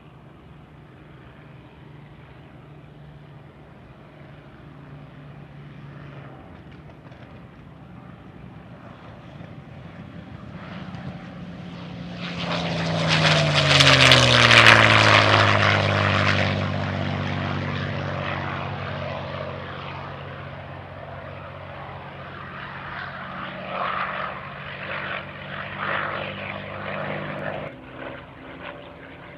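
Packard Merlin V-12 engine of a P-51 Mustang in a low, fast pass: the drone builds, is loudest about halfway through and drops in pitch as the fighter goes by, then fades away, swelling again briefly near the end.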